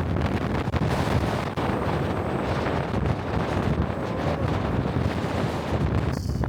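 Strong wind gusting across the microphone: a dense, rumbling buffet of wind noise, briefly broken near the end.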